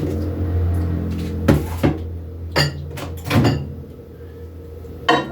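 A microwave oven being loaded: several short clunks and clicks, the door and a dish being handled, over a steady low appliance hum.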